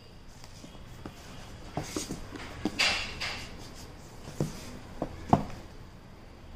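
A cardboard tablet box being handled and turned over: several light knocks and taps of the box and its lid, the sharpest a little after five seconds in, with a short scraping rustle of cardboard about three seconds in.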